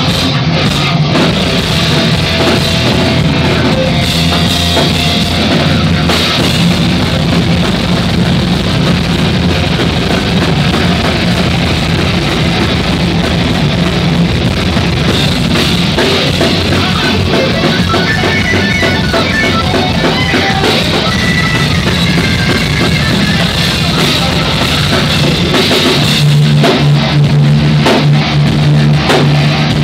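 Thrash metal band playing live: electric guitar, bass guitar and drum kit in a loud, dense, unbroken wall of sound.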